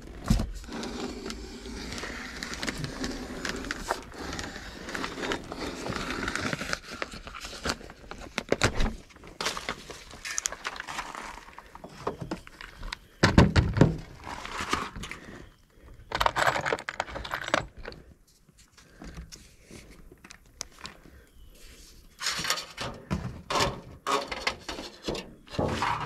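Hand work with plastic sheeting and sheet-metal flashing: a utility knife cutting plastic sheeting away, with crinkling, scraping and knocks as the sheeting is pulled off and the metal fascia is handled. The sounds come in irregular spurts, with the loudest knocks about thirteen seconds in.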